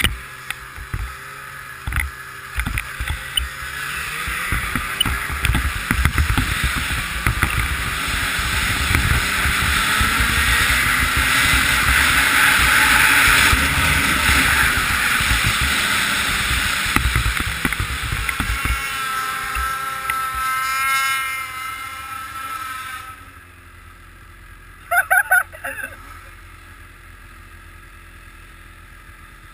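Snowmobile two-stroke engine running hard under load while ploughing through deep snow, with rough knocks and clatter from the sled. Its pitch slides down after about twenty seconds and it settles to a quieter steady run, broken by a couple of short sharp sounds near the end.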